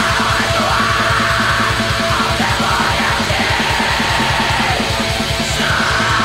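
Black metal song: rapid, even kick-drum strokes under a dense wall of distorted guitar, with harsh yelled vocals.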